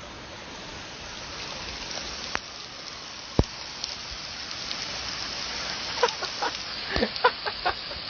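Short animal calls, several in quick succession, some sliding in pitch, starting about six seconds in over a steady hiss, after two sharp clicks earlier on.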